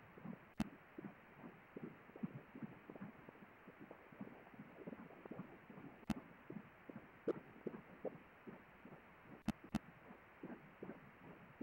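Pulsed-wave Doppler audio from an obstetric ultrasound scanner, sampling fetal blood flow at about 18 weeks: an even, rhythmic pulsing of a little over two beats a second, which is the fetal heart rate. A few sharp clicks cut in, about half a second in, around six and seven seconds, and twice close together near the end.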